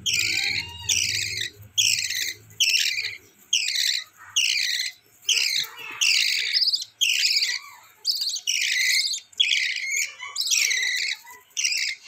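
Lovebird chicks giving raspy begging calls, about three every two seconds in a steady rhythm: hungry chicks calling to be fed.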